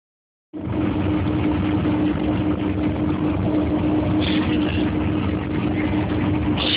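Snowcat engine running at a steady heavy drone with a constant low hum while it carries riders uphill. A few short higher-pitched sounds come through about four seconds in and again near the end.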